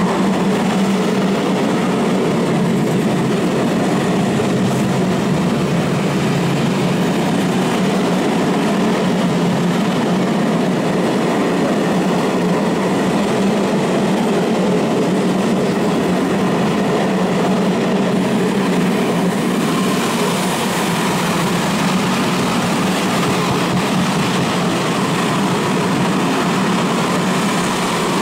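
Freight train's loaded stake and flat wagons rolling past at speed: a steady, loud rumble of steel wheels on the rails.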